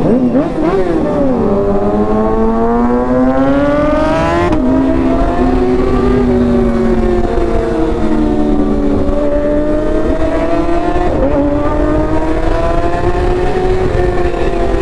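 Sport motorcycle engine pulling hard under acceleration, its pitch climbing for about four seconds before dropping sharply at a gear change, then running on at varying revs over steady wind rumble.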